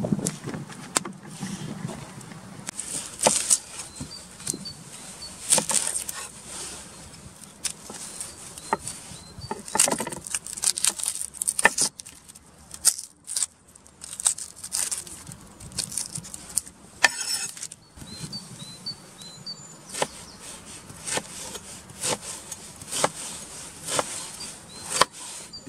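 A kitchen knife peeling and cutting an onion on a wooden cutting board: irregular clicks, scrapes and taps of the blade against the board and the onion skin.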